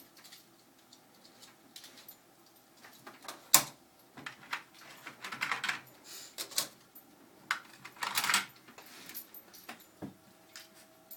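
Small sewing-machine accessories, such as spare needles and presser feet, clicking and rattling as they are handled and sorted, in short irregular clusters with one sharp click about three and a half seconds in.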